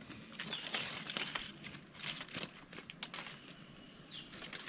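Machete blade whittling a small wooden stick by hand: a run of light, irregular scraping cuts and clicks.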